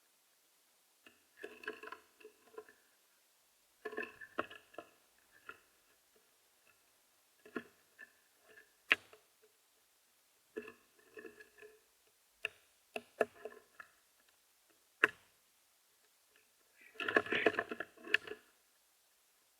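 Birds at a feeder, heard close to the feeder's microphone: short bursts of harsh, rattly chattering calls every few seconds, with single sharp taps on the feeder between them and the longest, loudest burst near the end.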